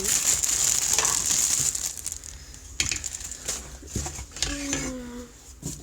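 Plastic wrapping crinkling and crackling as it is pulled off a lamp, loudest in the first couple of seconds, followed by scattered handling clicks.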